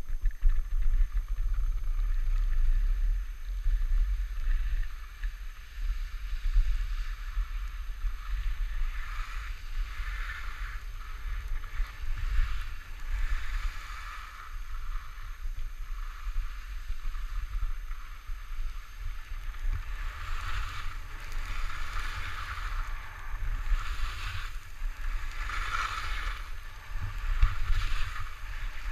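Wind rumbling and buffeting on an action camera's microphone during a ski run downhill, with a hiss of skis on snow that swells and fades with each turn.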